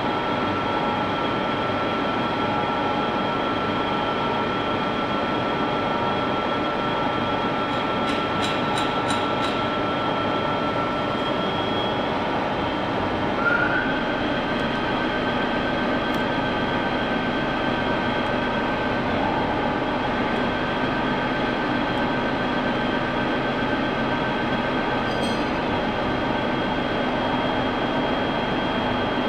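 Early-1990s CNC lathe running a turning cut with an ISCAR insert: a steady machine noise with a high whine. About thirteen seconds in, the whine steps up in pitch with a brief louder moment.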